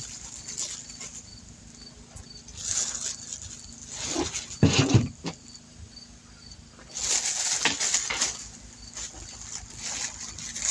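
Several short bursts of rustling and flapping as live lobsters are handled and move about in their packaging, over a steady low hum.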